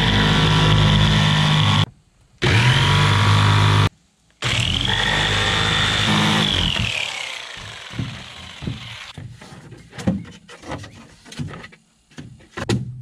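Cordless jigsaw cutting a white bulkhead panel in three runs with short pauses between; after the last run the motor winds down with a falling whine. Then scattered knocks and clunks as the cut panel is handled and fitted into the aluminium boat's deck framing.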